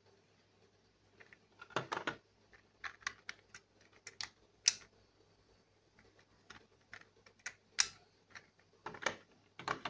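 Hard plastic toy belt buckles (DX Decade Driver and OOO Driver Raise Buckles) being handled, giving irregular clusters of sharp plastic clicks and taps.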